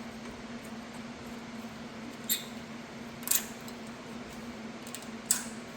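Brake pad clip being pressed onto the rear caliper bracket, giving three short sharp metallic clicks about a second and then two seconds apart, over a steady low hum.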